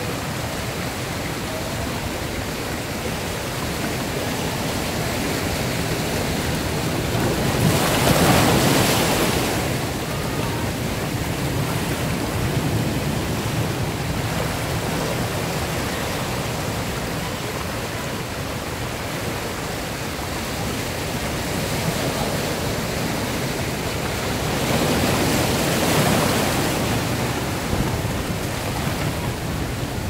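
Ocean surf rushing through a rocky channel: a steady wash of churning, foaming water, with two louder waves breaking, about eight seconds in and again after about twenty-five seconds.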